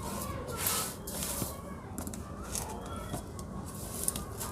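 Small scraping and ticking of a metal bobbin's rim turning the tiny tension screw on a sewing machine bobbin case, in short bursts. Faint voices run in the background.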